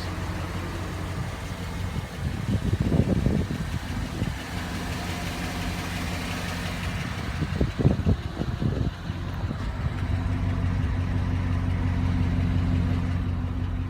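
Chevrolet Avalanche V8 engine idling steadily, with two brief louder stretches of noise about three and eight seconds in.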